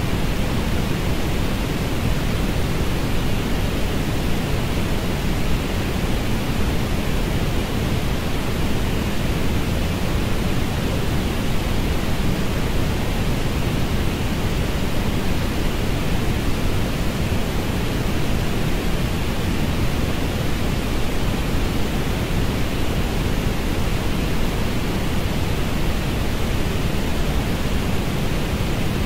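Orange noise: a steady, even hiss, heaviest in the bass, that does not change.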